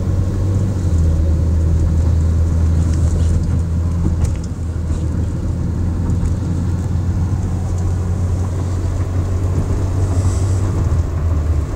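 Cabin noise of a moving car: a steady low rumble of engine and tyres on the road, heard from inside.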